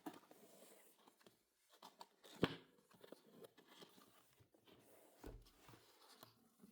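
Keyboard packaging being handled and opened, with faint rustling and tearing. There is a sharp snap about two and a half seconds in and a low thump a little after five seconds.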